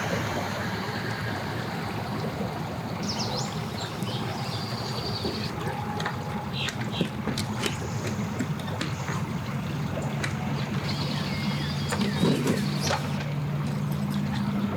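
Boat motor running at idle: a steady low hum that grows stronger about ten seconds in.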